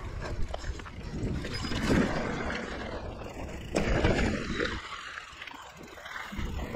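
2017 Liv Pique 3 mountain bike ridden along dirt singletrack: tyre noise and the bike rattling and knocking over bumps, with wind rumbling on the microphone. The noise swells about two seconds in and again about four seconds in.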